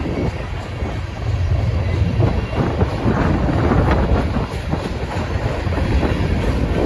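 Freight train of covered hopper cars rolling past: a steady low rumble of steel wheels on rail, with scattered clicks and knocks as the wheels cross rail joints.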